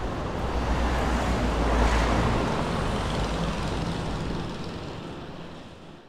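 Road traffic noise: a vehicle's low rumble swelling about two seconds in, then fading away.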